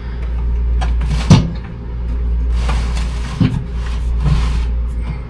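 A steady low hum runs throughout, with a few knocks and rustles of hands working at the cabinet and wiring. A sharp knock about a second in is the loudest, and two lighter ones come near the middle and later.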